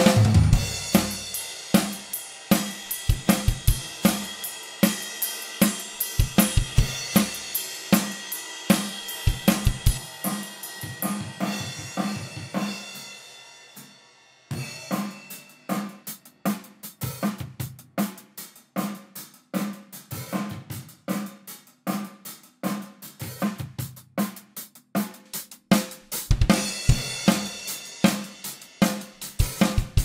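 Recorded drum kit playing a steady groove of kick, snare, hi-hat and crash cymbals. The room mics run through the Flamingo-Verb plugin for a small-room reverb. The drums stop abruptly for a moment about halfway through, then pick up again, with the crash cymbals back near the end.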